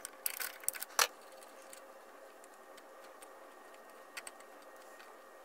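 Small clicks and light metallic rattles from wires and terminal connectors being handled in a three-phase electric motor's terminal box. The sharpest click comes about a second in and a couple of light ticks follow about four seconds in, over a faint steady hum.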